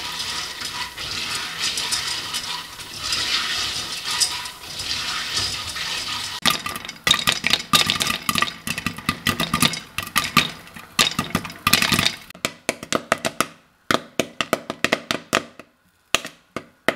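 Popcorn kernels frying in hot oil in a pan: a steady sizzle, then from about six seconds in a rapid crackle of kernels popping that thins out to scattered pops near the end as the batch finishes.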